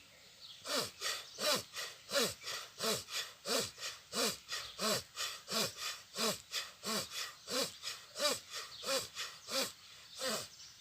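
A person doing bhastrika pranayama (bellows breath): quick, forceful breaths in and out through the nose in an even rhythm, about three strokes a second. The breathing starts just under a second in and stops shortly before the end, one full round of the exercise.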